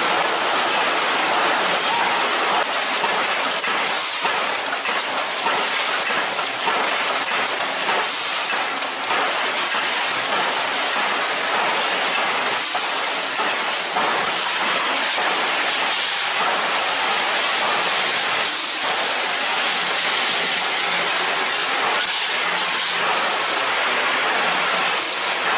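Bolt-making factory machinery running: a steady, dense clattering hiss with faint knocks here and there.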